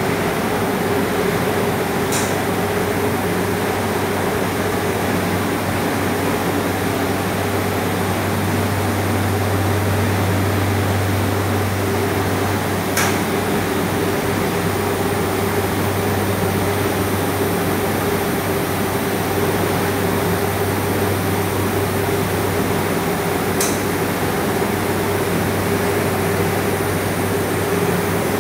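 Steady hum and whir of anodizing-plant machinery, a low constant hum under a broad running noise, with three faint ticks spread through it.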